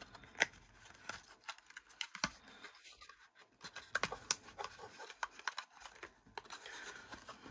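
Stack of playing-card-sized rune cards being handled and slid back into a thick cardboard tuck box: faint scraping of card edges against the cardboard, with scattered small ticks and taps.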